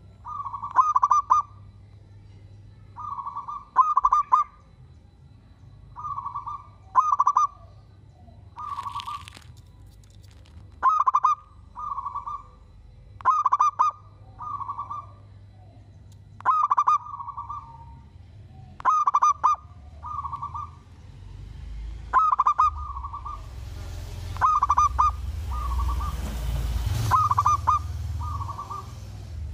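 Zebra dove (perkutut) singing at close range: short stuttering runs of cooing notes repeated every one to two seconds, with louder and softer phrases taking turns. A rising hiss of background noise comes in over the last few seconds.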